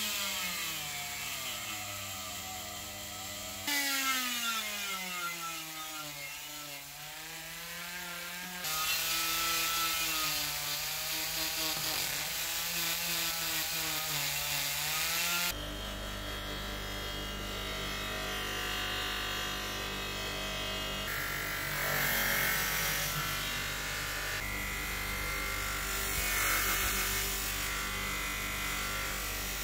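Handheld rotary tool with an abrasive wheel grinding the brass tank of a kerosene stove, its motor whine dipping and rising in pitch as the wheel is pressed on and eased off. About halfway a bench-mounted polishing wheel takes over, its motor humming steadily, with a hissing rasp whenever the brass is pressed against it.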